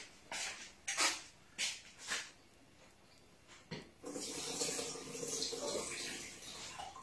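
Several short brushing noises, then water running or pouring for about two and a half seconds, starting about four seconds in.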